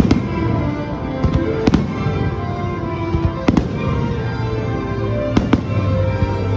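Fireworks going off in sharp bangs, about six in all, two of them close together near the end, over a fireworks show's music soundtrack.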